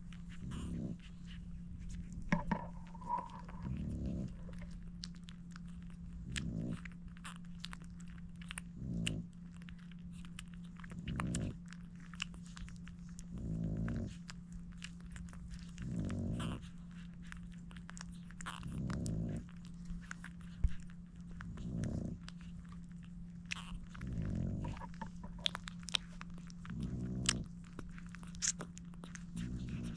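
Newborn French bulldog puppies suckling, with many small wet clicks and smacks. Under them a dog's low, rhythmic breath sounds about every two and a half seconds, over a steady low hum.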